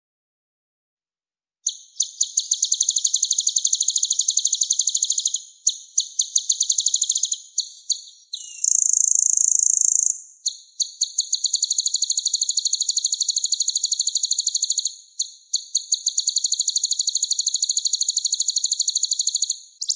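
A konin songbird singing fast rolling trills ('roll speed'), rapid repeated high notes in phrases of a few seconds with short gaps, and a single buzzy note about halfway through. The song starts about two seconds in.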